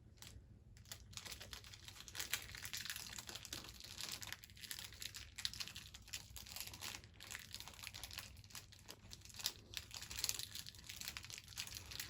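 Plastic bottle label wrapper crumpled and crinkled by hand as Foley for a campfire's crackle: a dense, irregular run of small crackles and snaps, starting about a second in.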